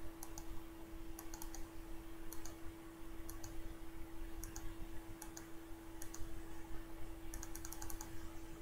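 Clicking at a computer: short clusters of key or button clicks every second or so, with a quick run of clicks near the end, over a steady low electrical hum.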